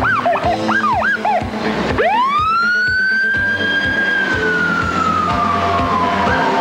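Fire engine siren: a fast yelp for the first second and a half, then a wail that rises sharply about two seconds in, holds, and slowly falls away. Background music with a steady beat plays underneath.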